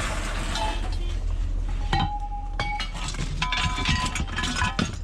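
Pieces of scrap metal clinking and clanging as they are handled and dropped onto a pile: a string of sharp strikes, two of them ringing on briefly.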